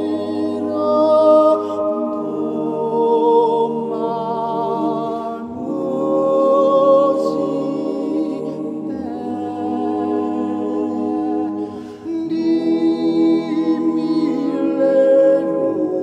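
Background music: a cappella singing by several voices holding long, wavering notes over a low held note that changes every few seconds.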